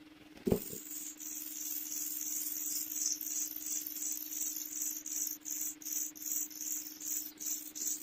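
Pied bushchat nestlings begging at the nest as a parent feeds them: a rapid run of thin, high-pitched squeaking calls, about two to three a second, starting just after a short thump about half a second in. A faint steady hum runs underneath.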